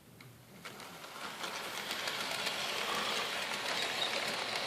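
Hornby OO-gauge model of the Peppercorn A1 locomotive Tornado running on its layout track with coaches in tow: a whirring rumble of motor and wheels that grows louder over the first two seconds, then runs steady, with scattered clicks of wheels over the rails.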